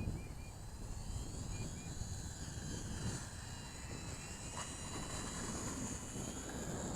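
The twin small electric motors and propellers of a micro RC P-38 model plane whine high-pitched as it flies, the pitch wavering and rising with throttle and distance, over a low rumble of wind on the microphone.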